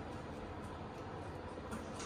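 A Shiba Inu puppy licking at a plate: a few faint soft clicks over steady low room noise.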